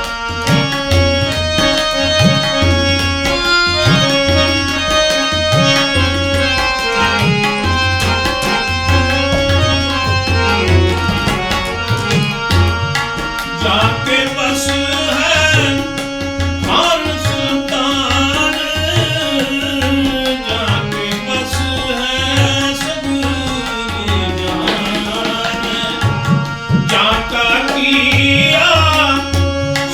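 Tabla and harmonium playing a Sikh kirtan passage: regular low tabla strokes under held harmonium chords, the melody growing fuller and more ornamented from about halfway through.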